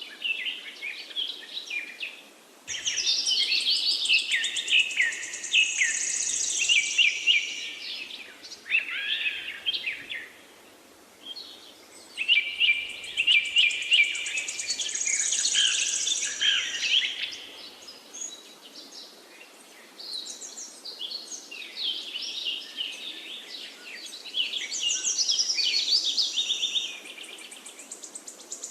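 Several songbirds singing and chirping over one another, with high trills among them, in bursts of several seconds broken by brief lulls.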